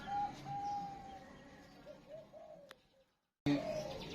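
Zebra dove (perkutut) cooing: a long held note, then a few lower rising-and-falling notes that fade. The sound drops out completely for about half a second near three seconds in, then resumes.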